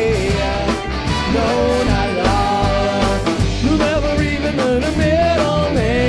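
Live band playing a song with electric guitars, bass, drums and a trumpet-and-trombone horn section, a man singing the lead vocal over it.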